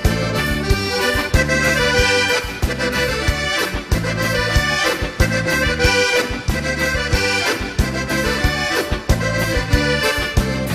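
Gaúcho folk music: a button accordion (gaita) plays an instrumental break over a steady bass and percussion beat.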